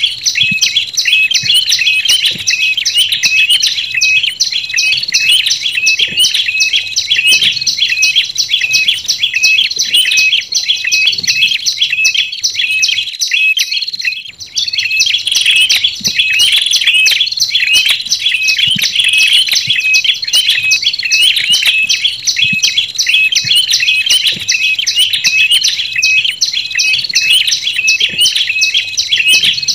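Tailorbird lure call (olive-backed and ashy tailorbirds) with a dense, unbroken run of sharp, rapid chirps. There is a brief pause a little before halfway.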